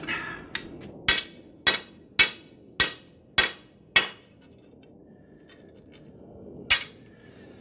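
Claw hammer pounding the end of a half-inch galvanized steel pipe flat on the edge of a concrete slab, metal on metal: six blows about half a second apart, each ringing briefly, then a pause and one more blow near the end.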